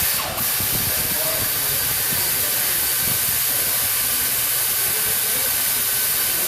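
A loud, steady hissing jet from a pressurised nozzle: one long blast of about seven seconds, with a brief dip just after it starts, cutting off sharply at the end.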